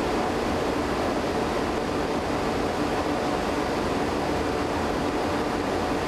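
Fire-resistance test furnace running at full heat: a steady, even rushing noise that does not change.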